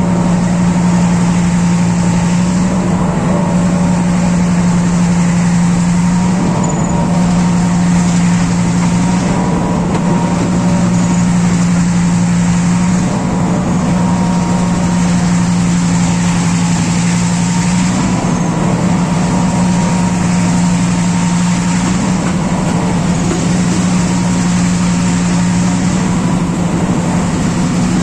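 Sri Lanka Railways Class M6 diesel-electric locomotive's EMD engine working hard at full throttle: a loud, steady drone that falters briefly every few seconds. This is in keeping with wheel slip under load.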